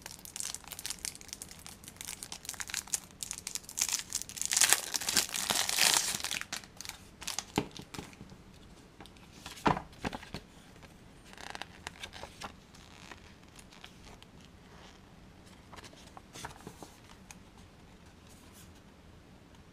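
Thin clear plastic wrap being peeled and crumpled off a small hard-drive enclosure, with crackling that is loudest about four to six seconds in. Scattered short rustles and handling clicks follow, thinning out toward the end.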